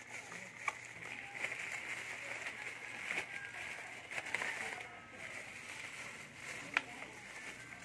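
Plastic bubble-wrap mailer crinkling and rustling as hands pull it open and spread it out, with scattered crackles and one sharper crack near the end.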